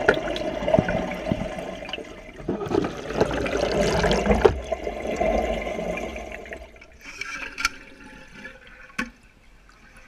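Toilet cistern flushing, heard from inside the tank: a loud rush of water that dies down about two-thirds of the way through, with a couple of sharp knocks near the end.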